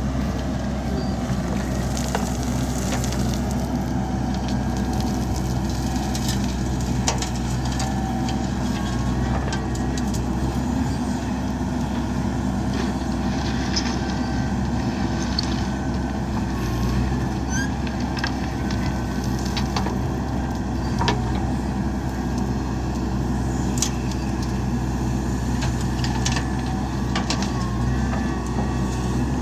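JCB backhoe loader's diesel engine running steadily under work, with scattered sharp knocks and clanks.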